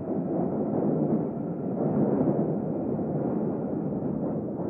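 London Underground train running, heard as a steady rumble from inside the carriage.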